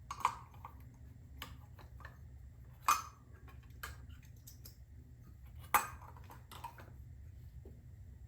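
Hard parts being handled: scattered light clicks and clacks, with three sharper knocks just after the start, about three seconds in, and near six seconds.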